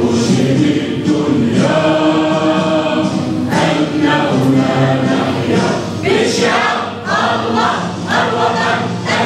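A crowd of many voices singing together in unison, holding drawn-out notes.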